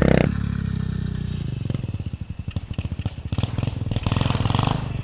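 SSR 125 pit bike's small single-cylinder engine revving high, then dropping back sharply just after the start to a slow, pulsing run. It picks up revs again about three and a half seconds in and eases off near the end.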